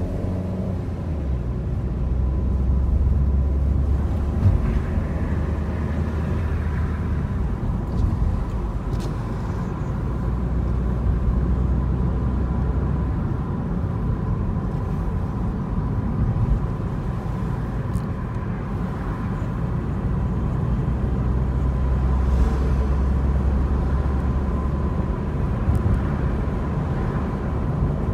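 Car driving along a city street, heard from inside the cabin: a steady low rumble of engine and road noise that swells and eases, with a few light clicks and a faint steady high tone.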